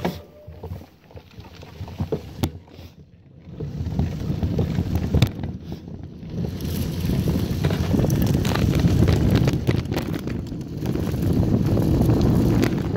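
Wind buffeting the microphone over the rumble of mountain-bike tyres on a dirt track, with rattles and knocks from the bike over bumps. The rush gets much louder about three and a half seconds in as the bike picks up speed.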